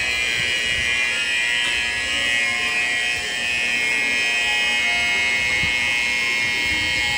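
Shinkansen platform departure bell ringing continuously as a steady, shrill electronic ring, the signal that boarding is ending and the train is about to depart.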